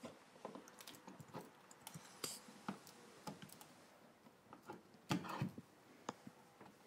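Faint, irregular clicks and short scrapes of a flathead screwdriver working the screws of a wall switch plate, with a louder bout of scraping about five seconds in.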